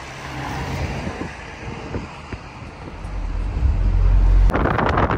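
Road traffic noise with a low rumble that builds about three seconds in, then a sudden rush of wind buffeting the microphone near the end.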